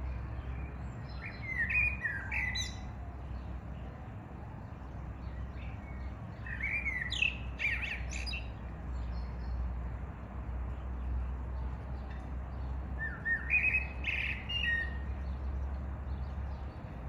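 Song thrush singing: three short bursts of quick, varied whistled notes a few seconds apart, over a steady low rumble.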